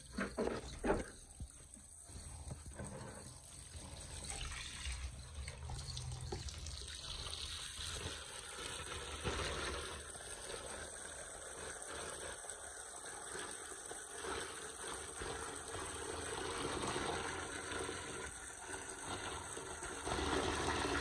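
Water running from a tap and trickling as someone washes by hand, with a few knocks near the start.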